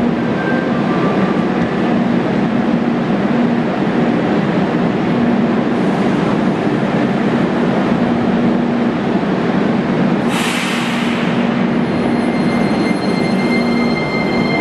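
Metrovagonmash Rusich metro train standing at the platform with a steady hum, then a short hiss of air about ten seconds in. Near the end, steady high whining tones from its traction equipment start up as the train begins to move off.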